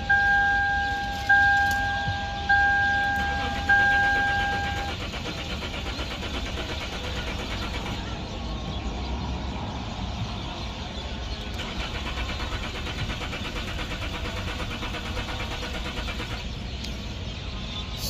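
Lexus IS300 dashboard warning chime dinging four times, about once a second. Then the starter motor cranks the engine steadily for several seconds without it firing: a crank-no-start fault.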